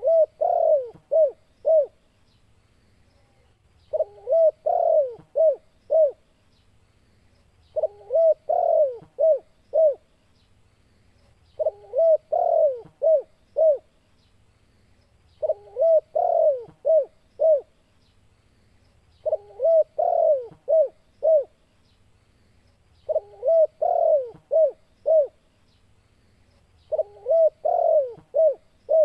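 Spotted dove (tekukur) singing: a phrase of about five coos, each a little over two seconds long, repeated about every four seconds. This is the vigorous territorial song that bird keepers play to lure and provoke other spotted doves.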